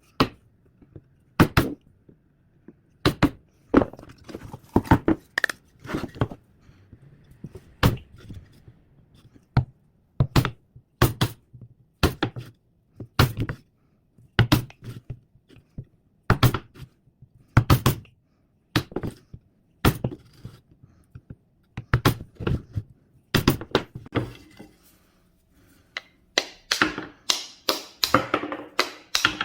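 Irregular sharp knocks and taps, about one or two a second, bunching closer together near the end.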